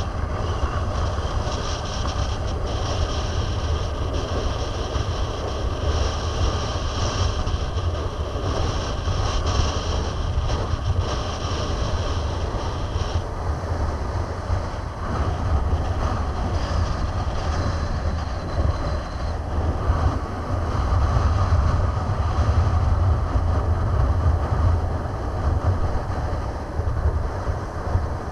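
Strong wind buffeting the microphone in a steady low rumble, over small waves splashing and lapping against a concrete bank.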